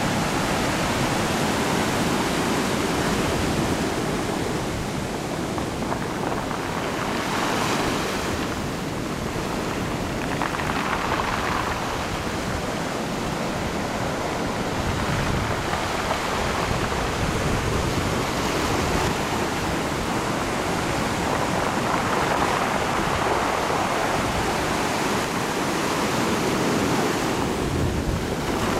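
Ocean surf breaking and washing over rocks in a continuous rush of white noise, with a few louder hissing surges as waves break.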